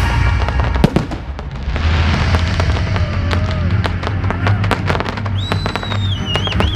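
Fireworks display: a loud bang just under a second in, then a rapid run of sharp bangs and crackling shell bursts, with music playing underneath.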